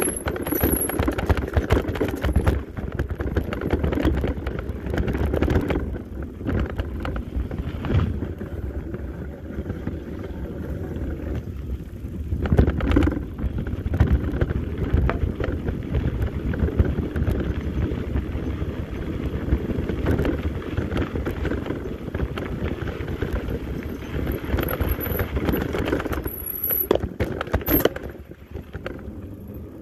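Mountain bike rolling fast downhill over a rocky dirt trail: tyres crunching over dirt and stones, with frame and chain rattling in constant small knocks, and wind rushing over the microphone.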